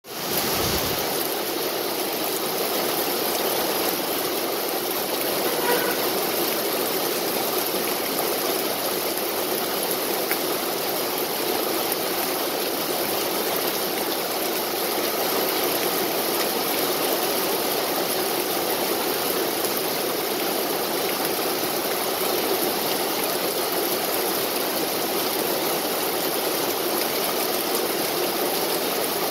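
Steady rain falling on trees and grass, an even hiss that does not let up.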